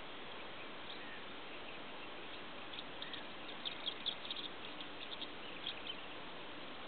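Steady outdoor hiss with faint, short high-pitched chirps of distant birds, a quick flurry of them a little past the middle.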